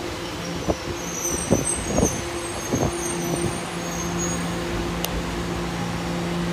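Tokyo Metro Ginza Line train pulling into the station and coming to a stop: its wheels knock over rail joints four times in the first three seconds, then a steady low hum as it stands at the platform.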